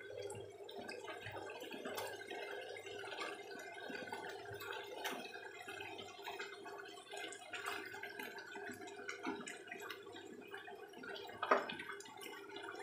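Thick dark soy-sauce gravy bubbling and popping in a nonstick pan as boiled beef chunks go in. A wooden spatula knocks and scrapes now and then, with one sharper knock near the end. A faint steady hum lies underneath.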